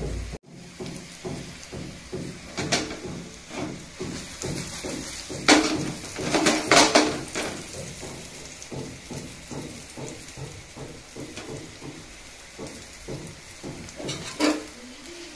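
Brinjal slices shallow-frying in oil in a pan, the oil crackling in many small pops, with a few louder sharp cracks in the middle and one near the end.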